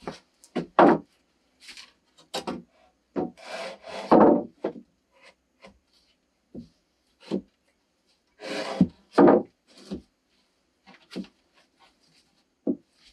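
New wooden floor boards being laid on wooden joists: sharp knocks as boards drop against each other and the joists, with a few longer scrapes as they are slid into place.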